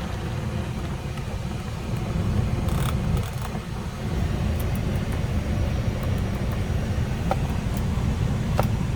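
Steady low vehicle rumble, with a few light clicks.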